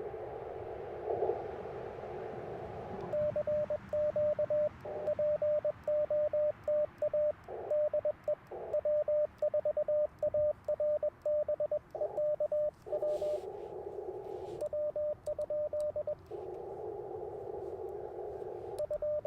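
Icom IC-705's Morse sidetone, a single steady tone keyed on and off in dots and dashes as CW is sent with twin paddles, with faint paddle clicks. It alternates with the receiver's narrow-filtered band hiss while listening for replies: hiss for the first three seconds, keying from about three seconds in, hiss again around the thirteenth second and for a few seconds before a short burst of keying near the end.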